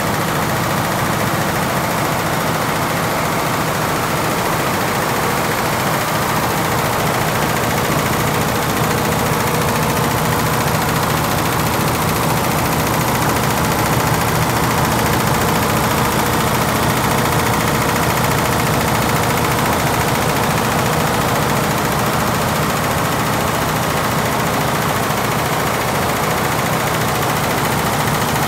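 Lejia multi-head industrial embroidery machine with over a hundred heads running at speed, its needle heads stitching in a rapid, steady mechanical clatter.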